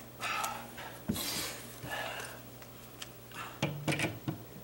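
Rustling and a few clicks and knocks from handling a drill fitted with a long flexible drill bit: three short rustles in the first half, then a quick cluster of clicks near the end.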